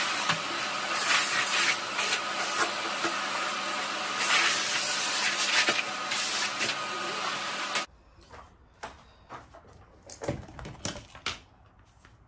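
Canister vacuum cleaner running steadily with a high whine as its floor nozzle is worked over wooden decking; the sound cuts off abruptly about eight seconds in. After it, a few light clicks and knocks of handling.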